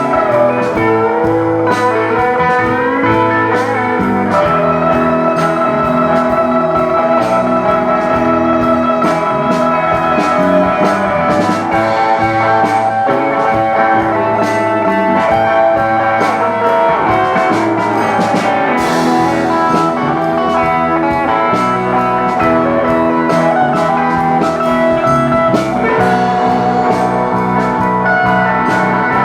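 Live rock band playing a blues-rock instrumental passage: a lead guitar holding and bending notes over bass and a drum kit keeping a steady beat.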